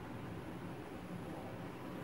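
Lit gas stove burner under a pan of oil, running with a steady, low rushing noise.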